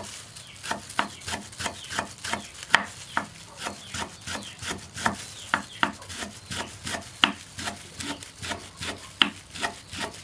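Large kitchen knife finely slicing rolled turmeric leaves on a wooden chopping board: a steady run of quick knife strokes knocking on the wood, about three to four a second.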